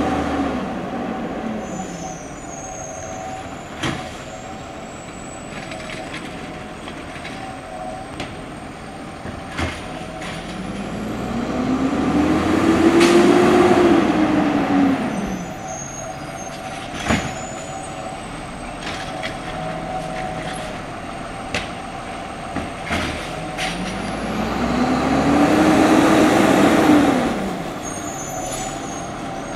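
Heil automated side-loader garbage truck idling, its engine twice rising and falling in pitch over about four seconds as it pulls ahead between carts. Between the pulls come a few sharp clicks and short air-brake hisses.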